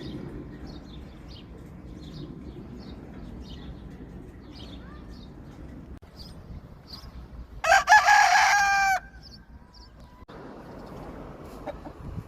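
A rooster crows once about eight seconds in, a single loud crow lasting about a second and a half. Under it is a steady low rumble of wind noise, with faint high chirps of small birds.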